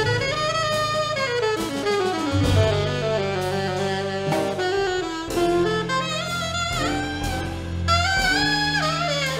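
A jazz octet of saxophones, trumpet and trombone with piano, double bass and drums playing live: several horn lines move up and down together over held low notes, with drums and cymbals marking the time.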